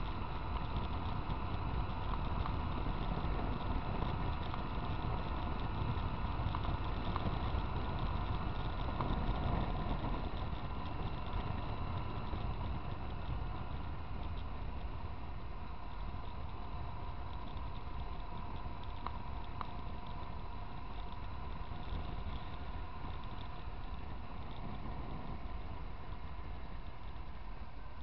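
Motorcycle riding at road speed: a steady engine drone mixed with wind rush on the microphone. It gets slightly quieter after about ten seconds.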